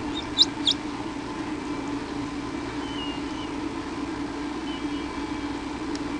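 Steady low electrical hum from the nest camera's sound pickup. About half a second in, an animal on the nest gives two short, sharp, high squeaks, and later two fainter chirps.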